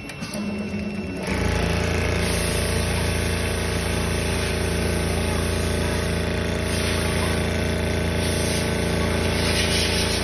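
Richpeace CNC automatic sewing machine running, a steady fast needle clatter over a low motor hum as it stitches through a thick padded panel. It starts about a second in.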